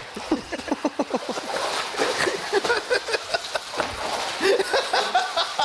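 Water splashing as a person swims, with voices and short vocal sounds over it.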